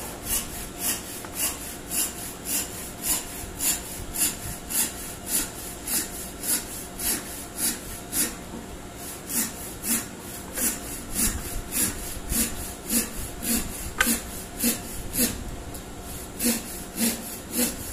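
Rhythmic rasping of a hand tool or abrasive worked back and forth on pallet wood, about three even strokes a second, with one sharp click about fourteen seconds in.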